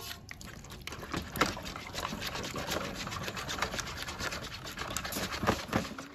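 Gravy being poured into broth in a disposable aluminium foil roasting pan: liquid splashing and dripping, with many small clicks and crackles throughout.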